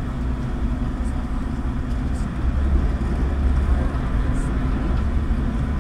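Passenger ferry's engine running with a steady low rumble, a little louder about halfway through.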